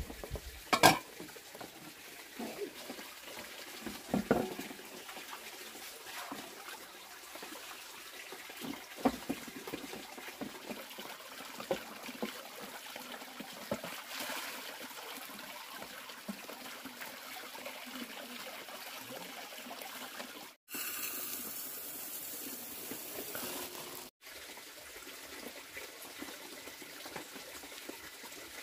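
Water trickling and splashing while metal pots are washed in a plastic basin fed by a hose, with scattered sharp knocks of pots being handled; the loudest knock comes about a second in.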